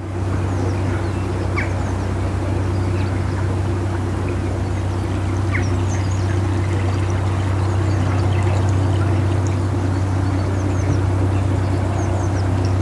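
Narrowboat diesel engine running steadily under way, a constant low hum with water churning, and faint bird chirps above it.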